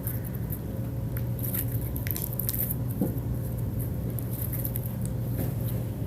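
Slime being worked by hand: scattered small sticky clicks and pops over a steady low hum.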